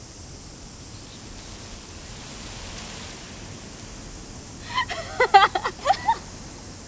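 Faint steady outdoor ambience, then about five seconds in a short burst of young women's laughter lasting about a second and a half.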